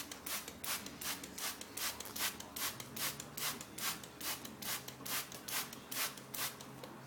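Hand trigger spray bottle squeezed over and over, about three quick hissing squirts a second, misting the cockatiels with water for a bath. The squirts stop shortly before the end.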